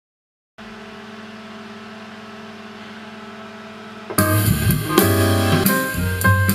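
Background music: a quiet held chord comes in about half a second in, then a loud band section with drums and guitar starts about four seconds in.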